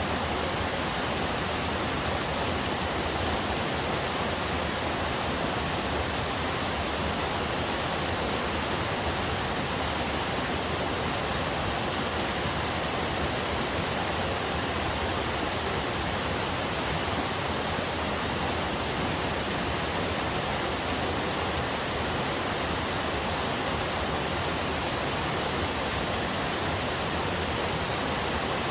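Small forest waterfall and river water rushing steadily, an even unbroken hiss with no changes.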